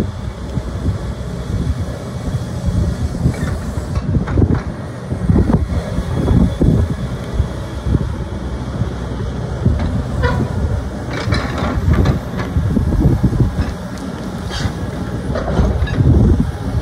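Hitachi ZX135-3 excavator at work: the diesel engine runs steadily under irregular clanks and rattles as the boom and arm move and the upper body slews.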